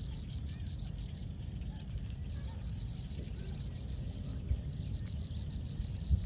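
Outdoor field ambience: a steady low rumble under a continuous run of short, high chirps from small creatures, several a second, with two brief low thumps near the end.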